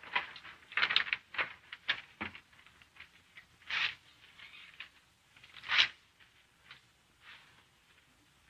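Scattered rustles and light knocks of paper being handled at classroom desks, with two louder hissing rustles about four and six seconds in.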